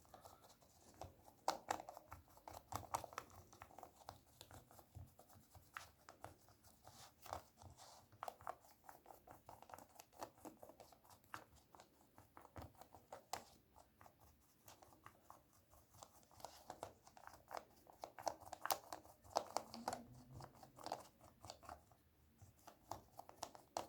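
Small brush wet with window cleaner scrubbing the buttons of a remote control's keypad: faint, irregular scratching strokes.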